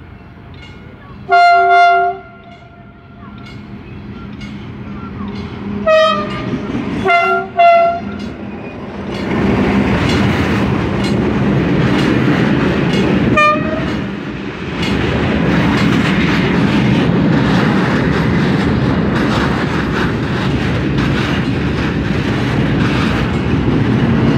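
TCDD DE 24000-class diesel locomotive horn: one long blast near the start, then a short blast, a quick pair of blasts and another short blast. From about nine seconds in, a loaded freight train of open wagons rolls past close by, a steady heavy rumble with wheel clatter over the rail joints.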